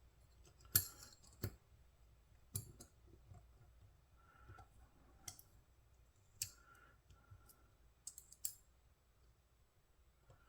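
Faint, scattered sharp clicks and light taps from the small metal parts of a disassembled folding knife and the tools used to reassemble it.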